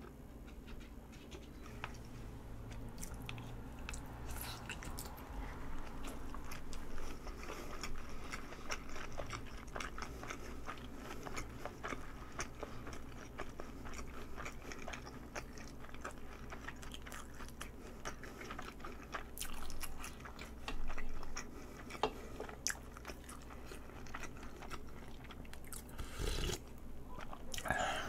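Close-miked chewing of a mouthful of soy-marinated raw salmon and rice, with many small wet mouth clicks and smacks.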